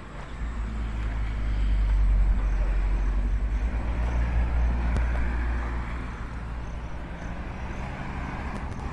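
Vehicles driving past close by, a van and then a car, their engine and tyre noise swelling over the first couple of seconds and then slowly easing off.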